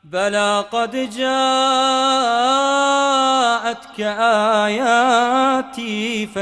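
A man chanting Quran recitation in the melodic tajweed style, drawing out long held notes, some with a wavering ornament, with short breaks for breath.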